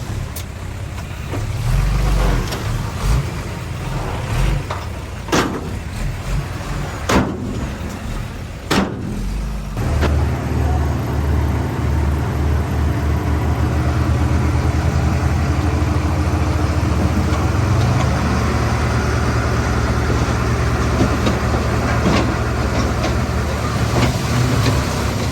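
Heavy diesel earthmoving machinery at work: an uneven low engine rumble with a few sharp knocks. About ten seconds in, a steady, louder diesel engine drone sets in and holds.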